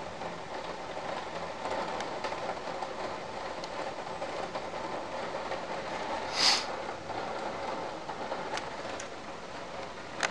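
Steady rain falling during a storm, an even hiss with a few sharp drip ticks. A brief louder burst of noise comes about six and a half seconds in.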